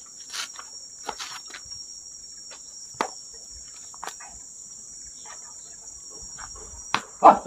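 A steady, high-pitched chorus of insects chirring, with a few short clicks and knocks scattered through it, one louder near the end.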